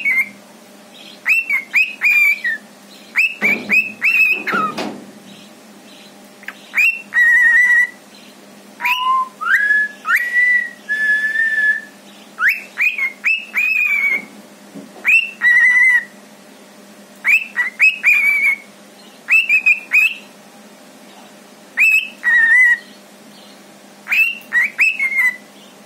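Lutino cockatiel whistling: short, sharp, falling chirps in clusters of two to four, repeated, with a few longer held whistle notes around the middle.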